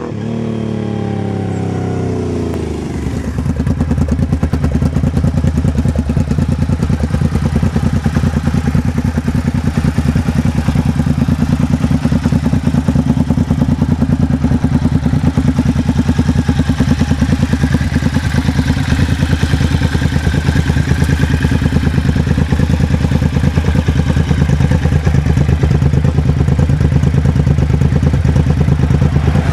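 Suzuki VX800 V-twin engine with its exhaust dB killers removed, running unbaffled. The revs fall away over the first few seconds, then it idles steadily with an even, loud exhaust pulse.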